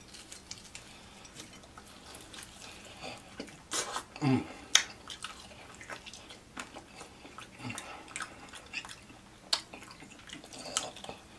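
Close mouth sounds of eating hot-sauced fried chicken wings: wet chewing, lip smacks and sharp clicks of biting, scattered irregularly. A short low vocal sound falling in pitch about four seconds in.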